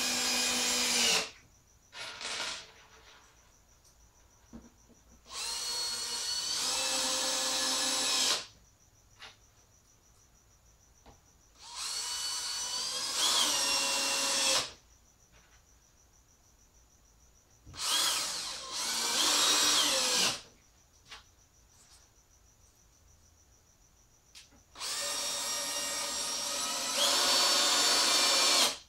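Cordless drill/driver driving wood screws into a plywood box in several separate runs of two to four seconds, with short pauses between. The motor whine steps up in pitch partway through most runs.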